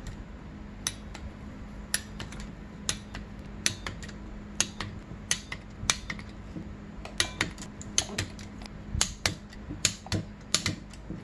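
Ratcheting torque wrench clicking in short strokes while cylinder head bolts are tightened, sharp clicks about once a second that come quicker and closer together in the second half.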